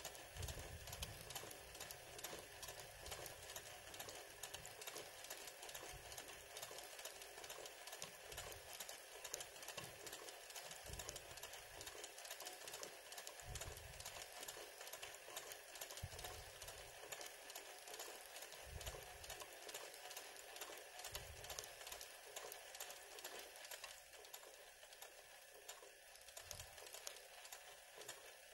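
Sewing machine running fast for hand-push (free-motion) embroidery, the needle stitching through fabric held in a hoop: a faint, rapid, even clatter with low rumbles now and then.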